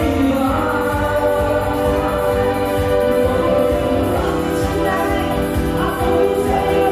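Loud dance music with a singing voice, played over a loudspeaker, with a steady beat underneath.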